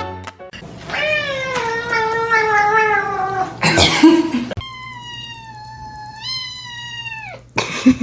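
Domestic cat yowling: two long, drawn-out meows, the first sliding down in pitch and the second stepping up before it drops off. A short, loud, noisy burst comes between them.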